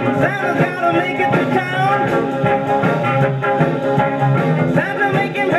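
A 45 rpm song record, a voice singing over instruments, playing through the 1956 RCA 7-HF-45 Orthophonic record player's four-tube amplifier and woofer-and-tweeter speakers with the lid closed.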